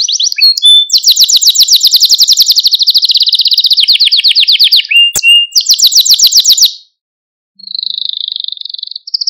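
Canary singing: fast trilled rolls of repeated high notes, one roll running straight into the next. About seven seconds in the song breaks off briefly, then a softer trill starts up.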